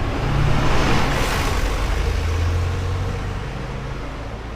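City bus engine pulling away from a bus stop under full-load acceleration, a heavy engine drone with road noise that is loudest about a second in and then slowly fades as the bus moves off.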